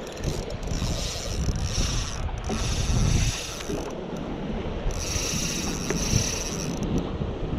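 Spinning reel whirring in three spells of a second or two as line is cranked in against a hooked redfish, with wind rumbling on the microphone underneath.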